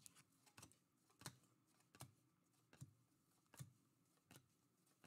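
Trading cards being flipped through one at a time, each card sliding off the stack with a faint soft click or swish, about every three quarters of a second.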